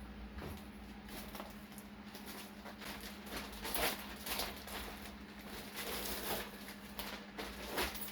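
Packaging rustling and crinkling as items are unwrapped and handled: irregular scratchy crackles that get busier about three seconds in, over a faint steady hum.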